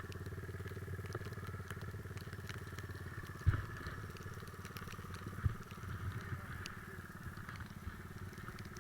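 Three-wheeler ATV engine running steadily at an even speed, with two short knocks partway through.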